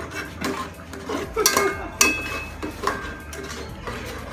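A stirring utensil knocking and scraping against the side of an aluminium cooking pot, making a series of sharp, ringing metallic clinks at irregular intervals.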